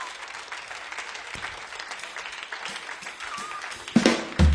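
Live audience applauding a band, with a short whistle from the crowd. Near the end, a sudden loud hit and low bass notes as the band starts the next tune.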